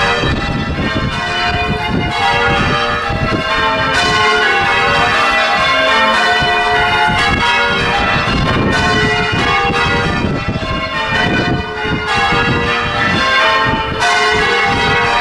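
Church tower bells in change ringing: a continuous run of many bells struck one after another, their notes overlapping and ringing on.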